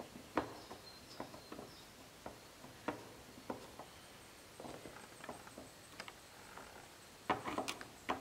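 Screwdriver turning and clicking against the side mirror's mounting screws and bracket inside a Mercedes W124 door, irregular sharp ticks with a quick cluster of louder clicks near the end.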